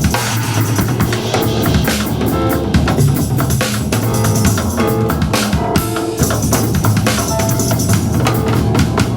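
Band music with a drum kit playing steadily, kick and snare hits over sustained pitched instruments.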